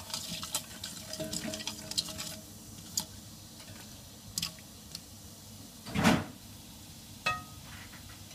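A spoon stirring cumin seeds and dried red chillies in oil in a metal pan: dense crackling and scraping clicks for the first couple of seconds, then scattered light clicks. There is a louder knock about six seconds in and a short ringing clink a second later.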